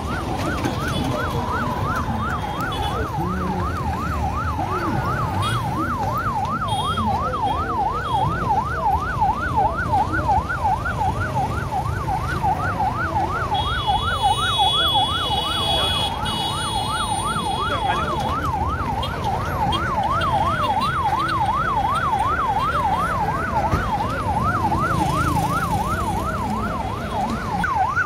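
Ambulance electronic siren in fast yelp mode, sweeping rapidly up and down about twice a second without a break, over the low noise of vehicles. A higher, horn-like tone sounds for a few seconds about halfway through.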